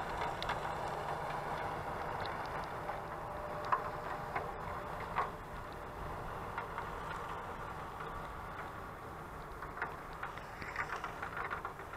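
New Holland tractor pulling a manure spreader, running steadily and slowly fading as it drives away, with scattered light ticks.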